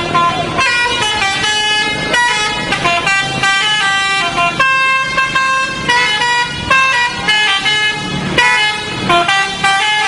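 Indonesian bus 'telolet' musical horn playing a melody of quick stepped notes, several tones sounding together.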